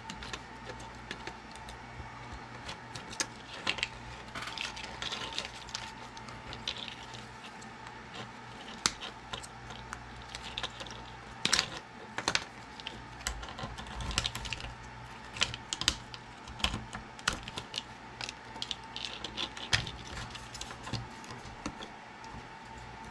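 Diagonal wire cutters snipping through the wires of a small circuit board, with small board pieces being handled and set down on a wooden bench: a run of irregular sharp clicks and snaps.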